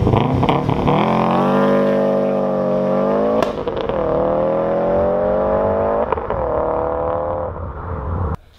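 Subaru WRX STI's turbocharged flat-four engine accelerating hard from a launch. Its pitch rises through the gears with two upshifts, about three and a half and six seconds in, and it fades as the car pulls away.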